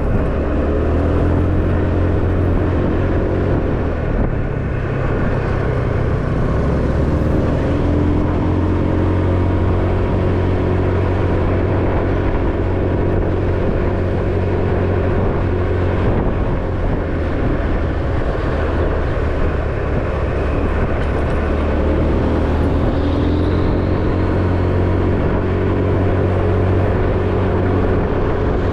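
Small everyday motorcycle engine running under the rider, its pitch rising and falling a few times with the throttle, over steady road and wind noise.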